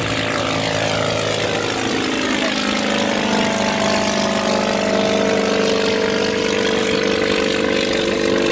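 Small propeller-driven Hummel Ultracruiser ultralight flying overhead just after takeoff, its engine and propeller running at power. The pitch falls over the first couple of seconds as it passes, then settles into a steady drone.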